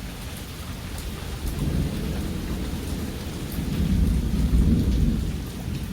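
Heavy rain falling steadily during a thunderstorm, with a deep roll of thunder that builds from about a second and a half in and peaks around four to five seconds. Scattered drops tick on nearby surfaces.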